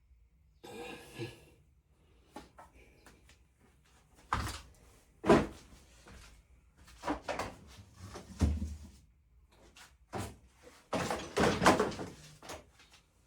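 Irregular knocks, clinks and clatters of hand tools and metal parts being handled on a van engine. The loudest knocks come about four to five seconds in and in a cluster near the end.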